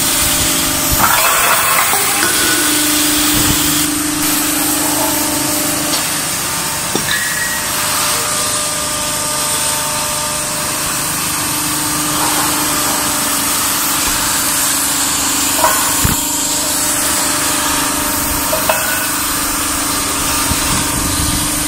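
Oxy-fuel cutting torch cutting steel, giving a steady loud hiss. A steady low hum runs underneath, and there are a few short clicks and knocks.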